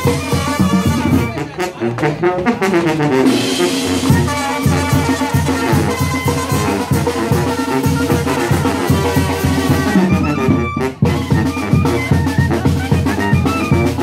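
Tamborazo band playing live: trumpets and trombones over a steady beat on the tambora bass drum. The drums drop out for about two seconds, starting a second and a half in, while the brass carries a run, then come back in; the whole band breaks off for an instant near eleven seconds.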